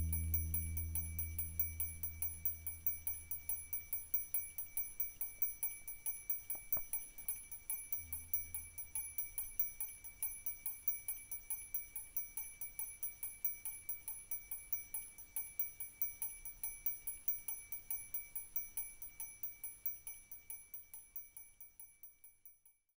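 Brass angel chimes turning on candle heat, the angels' dangling rods striking small bells: light, even tinkling of about four strikes a second on a few ringing bell pitches. It fades out shortly before the end.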